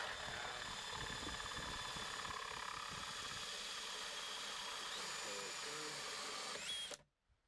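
Electric drill driving a 1¼-inch bimetal hole saw through the dash panel, a steady whine with a cutting hiss. The pitch steps up twice near the end, and the sound cuts off suddenly about seven seconds in.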